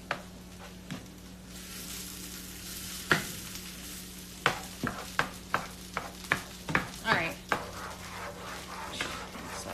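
Tofu scramble being stirred with a spatula in a frying pan: a run of sharp taps and scrapes against the pan, about two a second, starting about three seconds in, over a steady sizzle of food frying.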